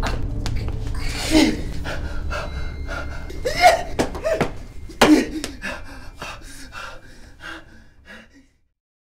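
A man gasping and crying out in fright, three sharp strained cries a couple of seconds apart over a low drone. These trail off into quicker, shorter panting breaths and fade to silence near the end.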